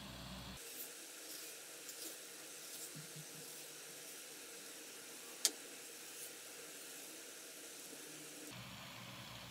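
Kitchen knife scoring a mango half on a plastic cutting board: scattered soft clicks as the blade taps the board, with one sharp click about halfway through, over a steady background hiss.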